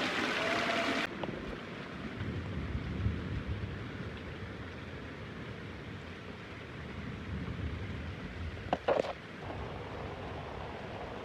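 Steady rain with low, rolling thunder rumbles. About a second in, a louder rushing water sound cuts off abruptly, and near the end a brief sharp crack stands out as the loudest moment.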